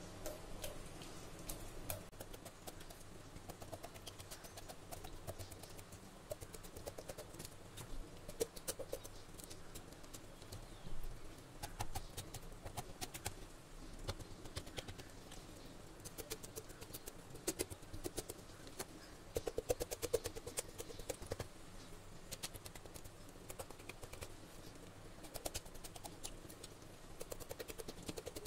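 A fork pricking a whole raw chicken on a wooden cutting board: quiet, irregular clicks and taps as the tines go through the skin and knock the board, with soft handling of the bird between them.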